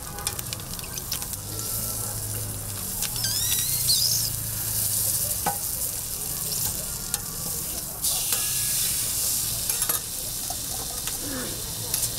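Sausage, egg and buns sizzling in oil on a flat-top griddle, with scattered clicks of metal tongs and a spatula as the sausage and a bun are turned. The sizzle grows louder about eight seconds in, over a steady low hum.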